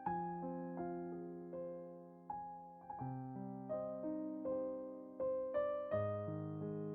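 Background music of slow, soft solo piano: single melody notes over sustained chords, each note fading after it is struck. The chords change about every three seconds.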